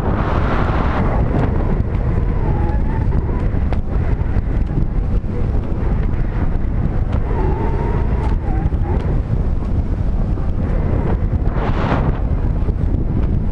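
Wind buffeting the microphone of a pole-held camera on a parasailer in flight: a loud, steady low rumble.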